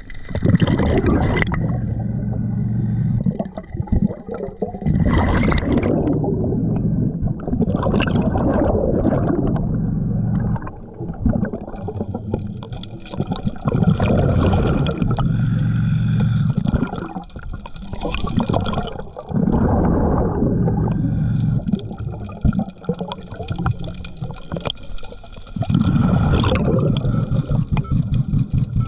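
Scuba diver breathing through a regulator underwater: about five long, bubbling rushes of exhaled air, each a few seconds long, with quieter hissing inhales between them.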